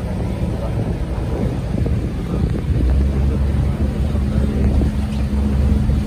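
Boat engine running steadily with a low hum, which grows louder about halfway through.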